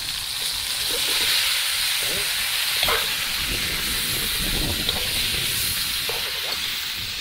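Food sautéing in hot oil in a cooking pan, a steady sizzling hiss.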